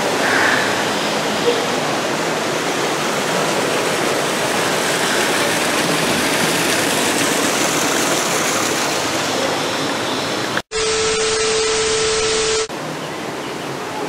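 Steady rushing of a small waterfall and stream. Near the end the sound cuts off abruptly and a steady hum takes over for about two seconds, then fainter water noise returns.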